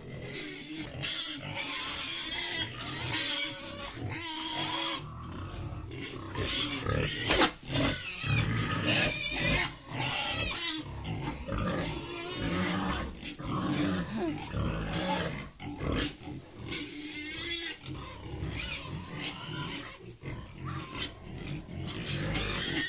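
Pigs grunting continuously at feeding time, with high, wavering squeal-like calls scattered among the grunts and occasional knocks.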